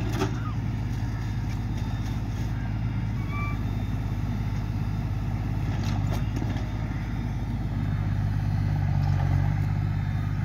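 Straight-piped diesel engine of a New Holland 7840 tractor running steadily at working revs while powering a baler-wrapper, the note swelling a little louder about eight seconds in. A few faint knocks come from the machinery midway.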